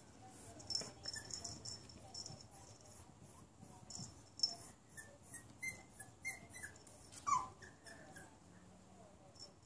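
Small puppy whimpering: faint, short high squeaks, with a louder falling whine about seven seconds in.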